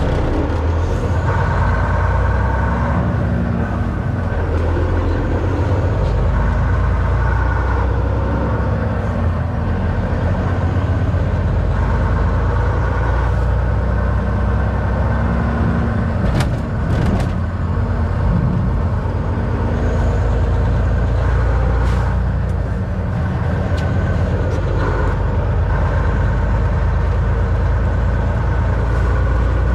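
Semi-truck engine running while driving, heard from inside the cab: a steady low drone whose engine note comes and goes in strength every few seconds. A few short clicks or knocks come about halfway through.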